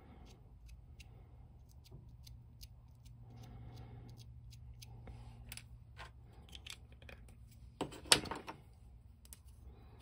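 Small plastic parts and a primer pen being handled on a cutting mat: faint scattered clicks and taps, with a louder short clatter about eight seconds in.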